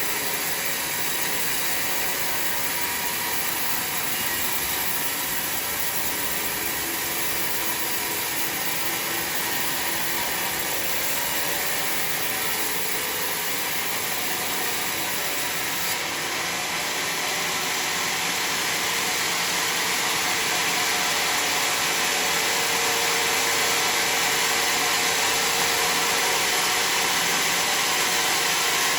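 Sawmill saw running through a bayur log, a steady rushing mechanical noise that grows a little louder and brighter a little past the middle.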